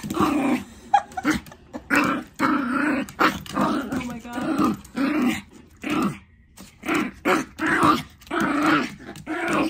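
Teacup poodle puppy barking excitedly in play: a rapid string of short barks, with a brief pause a little past the middle.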